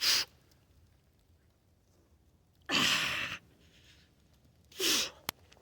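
A man's forceful hissing exhalations, three of them, the middle one the longest, as he strains under a heavy kettlebell press. A single sharp click comes near the end.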